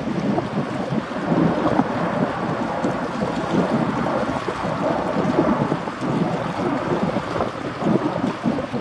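Gusty wind buffeting the microphone, a rough rumbling rush, mixed with the noise of a foil-borne Boeing Jetfoil hydrofoil ferry as it comes in over the water.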